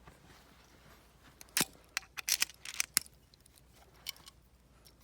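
A quick cluster of sharp clicks and taps, like a screwdriver and plastic parts being handled at a dome camera's housing, starting about one and a half seconds in and stopping near three seconds.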